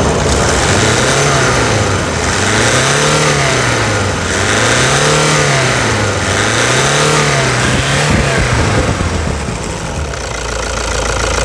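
Toyota Hilux D-4D turbodiesel engine revved by hand at the throttle linkage, its revs rising and falling about four times, each blip about two seconds. It then drops back to a steady idle near the end.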